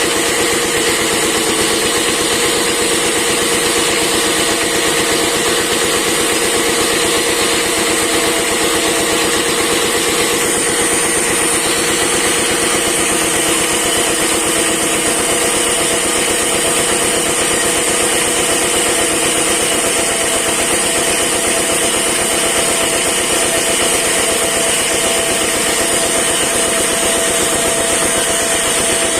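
A wood-cutting machine running steadily, a continuous mechanical drone with several held tones that shifts about ten seconds in.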